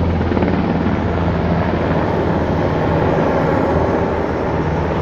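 Large helicopter flying low overhead, its rotor and engine sounding loud and steady.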